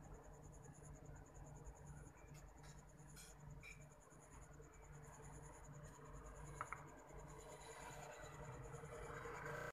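Faint scratching and a few light taps of a paintbrush working acrylic on a wooden panel, over a steady high trill of insects and a low hum.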